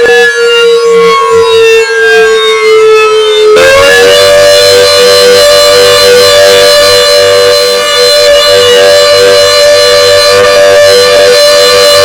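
Klaxon CS8 siren sounding very loudly during a test: a steady wail that sags slightly in pitch, then about three and a half seconds in jumps up to a higher pitch and holds steady, several tones sounding together.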